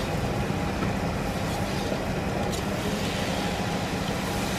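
Steady low roar of the stove burner under an iron kadai, with a slotted ladle stirring and scraping through thick curry in the pan, giving a few light clicks.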